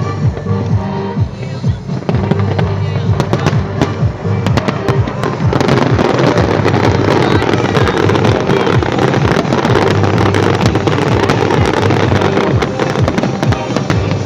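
Fireworks going off in a rapid string of bangs and crackles, turning into a dense, louder crackling barrage partway through, with music playing underneath.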